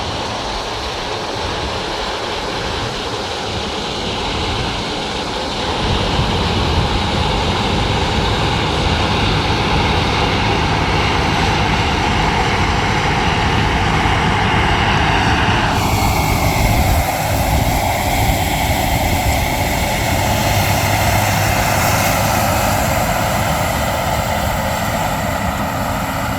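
Harvest machinery, most likely a combine harvester, running steadily. Its low rumble grows louder about six seconds in, and its tone shifts again about ten seconds later.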